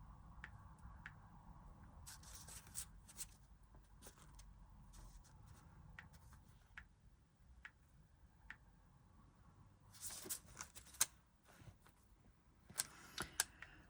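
Stickers and paper being handled by hand: faint rustling with light clicks and taps, a louder flurry of rustles about two seconds in and again about ten seconds in, and a few sharp clicks near the end.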